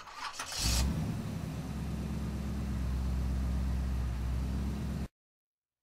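Car engine sound effect: a short sharp burst, then the engine running at a steady low pitch until it cuts off suddenly about five seconds in.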